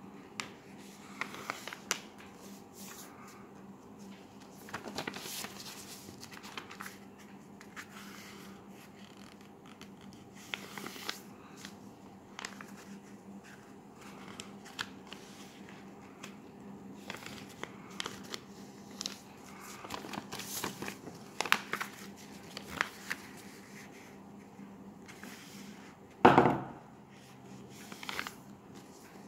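Sheet of colour paper being folded and creased by hand: irregular rustling and crinkling with soft taps, over a faint steady hum. One short, louder burst near the end.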